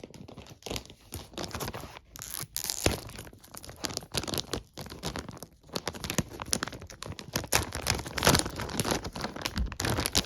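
Magazine packaging being torn open and crinkled by hand: a run of irregular ripping and crackling rustles that gets louder in the second half.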